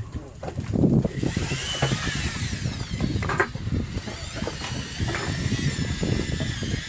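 Large conventional fishing reel whirring, a mechanical whir with a wavering pitch that sets in about a second in and keeps on, over uneven low wind rumble on the microphone.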